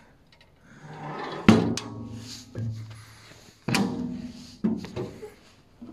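Sheet-metal storage compartment lid on an excavator being shut: two heavy thunks about two seconds apart, each ringing on briefly, then a lighter knock.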